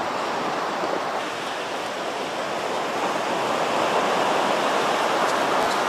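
Surf washing onto a sandy beach: a steady rush of waves that swells a little toward the end.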